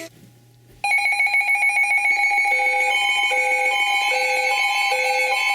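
A radio broadcast cuts to near silence, then just under a second in an Emergency Alert System attention signal starts abruptly: a steady, shrill two-tone alarm. From about two and a half seconds a fainter beeping pattern repeats under it, a little more than once a second.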